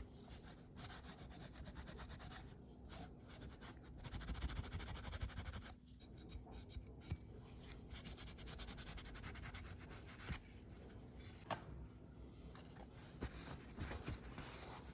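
Hand rubbing or sanding on the bronze censer: a dry, scratchy hiss in uneven runs of strokes broken by short pauses, with a couple of light clicks in the second half.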